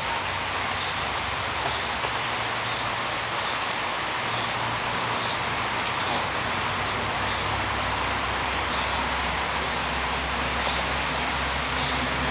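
Steady rain falling on hard surfaces, with a few sharper drips now and then.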